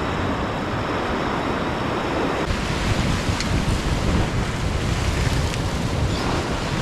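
Wind buffeting the microphone over the steady wash of ocean surf, with a couple of faint ticks in the middle.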